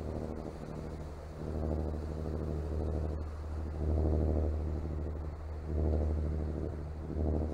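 Diesel engine of a two-masted sailing yacht motoring past under power: a steady low drone with a rapid diesel knock, swelling louder a few times.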